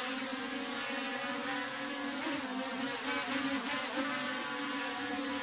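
Small foldable quadcopter's propellers buzzing steadily as it hovers and turns in the air, the pitch wavering slightly now and then as the motors change speed.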